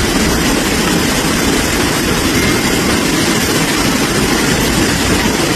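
Steady, loud rushing water noise from the storm and flooding, even and unbroken with a deep rumble underneath. It starts and stops abruptly.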